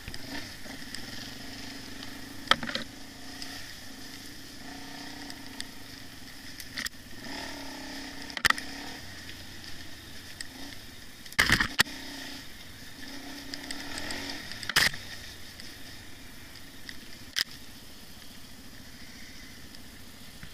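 Dirt bike engine running at low revs, its note swelling and easing every few seconds with the throttle. Several sharp knocks from bumps in the trail break through it.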